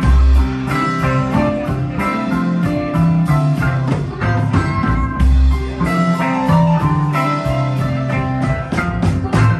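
Live rock band playing an instrumental passage: electric guitars over bass and drums, with keyboards on stage, and a steady beat of drum and cymbal strokes.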